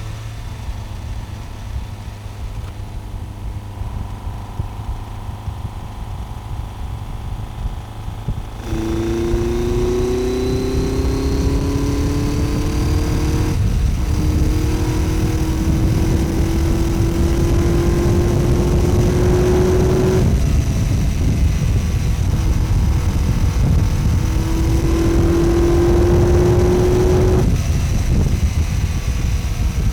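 BMW K1100 RS motorcycle's inline-four engine running under way, mixed with heavy wind rush. About a third of the way in it gets louder and the engine note climbs slowly in pitch as it pulls. The note drops away twice and then climbs again.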